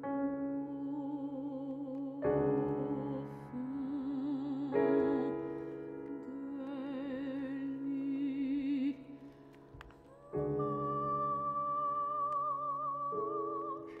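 Soprano singing with vibrato over piano chords in a contemporary classical art song. The voice moves in its lower range, then after a brief lull about ten seconds in a new piano chord is struck and the soprano holds a long high note.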